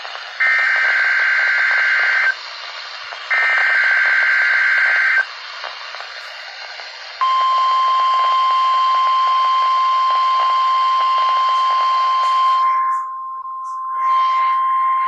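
NOAA Weather Radio Required Weekly Test through a Midland WR-120EZ weather radio's speaker: two raspy SAME digital header bursts, about two seconds each with a short gap between, then after a pause the steady 1050 Hz warning alarm tone starts about seven seconds in and holds, over faint radio hiss. The tone dips briefly in level about thirteen seconds in.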